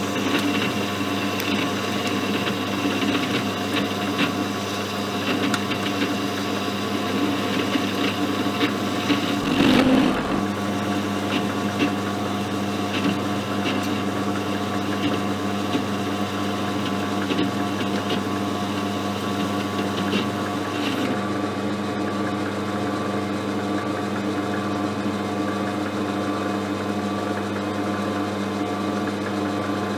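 Small hobby lathe running steadily with a motor hum while its carbide insert tool turns a stainless steel bar. There is a brief louder stretch of cutting about a third of the way in, and the higher hiss of the cut thins out about two-thirds of the way through.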